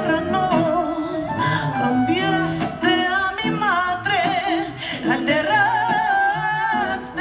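Live band music: a wordless, wavering melody with heavy vibrato, sung or wailed over plucked guitar and a bass line.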